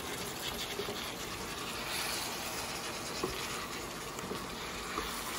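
Chicken and potato curry sizzling steadily in a pan as a wooden spoon stirs it, with a couple of faint knocks of the spoon.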